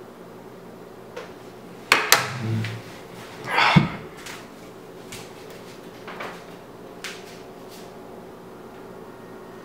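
A person getting up from a wooden chair at a table: two sharp knocks about two seconds in, a short low scrape, then a louder scraping rush just before four seconds, followed by a few faint knocks.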